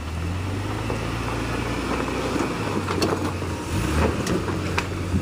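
Jeep Cherokee XJ's engine working steadily under load as it crawls up a rocky ledge, its revs rising near the end. A few sharp knocks come in the second half.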